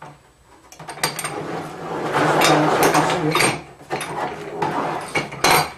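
Metal roller tubes and corner castings of a loosened Newman M3 screen-printing roller frame clattering and scraping on the table as the frame is shifted and swung open at one corner, with a sharp metal click near the end.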